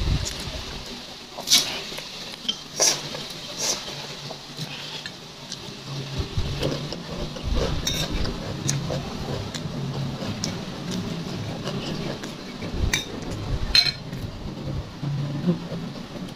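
Metal spoon clinking and scraping against a glass bowl of rice while eating, in scattered sharp clinks. A low steady hum sits underneath from about six seconds in.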